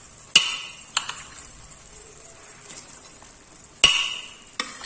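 Steel ladle clanking against metal cooking pots as boiled chickpeas are scooped from a pressure cooker into a kadhai of masala. There are two sharp ringing clanks, one just after the start and one near the end, with lighter taps between.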